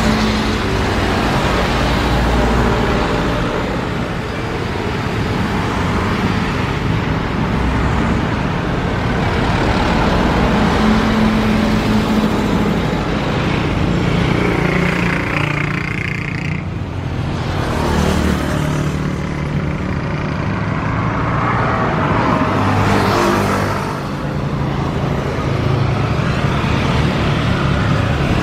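Loud, continuous engine noise with a steady rushing sound. Something passes twice, around the middle and again about two-thirds of the way through, with the pitch sweeping up and then down each time.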